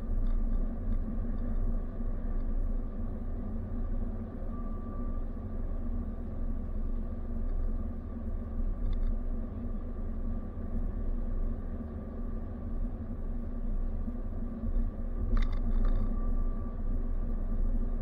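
Car driving at steady speed, heard from inside the cabin: a steady low rumble of engine and tyres on the road, with a faint steady whine and a brief click about fifteen seconds in.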